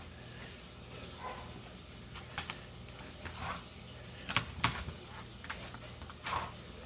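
Patting a raw, brined whole turkey dry by hand: soft, irregular pats and rustles, with two sharper taps a little past halfway.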